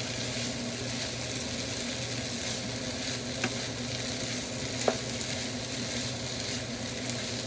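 Chopped bopis sizzling steadily in a frying pan as a wooden spatula stirs it, with a couple of light taps of the spatula against the pan around the middle. A low steady hum sits underneath.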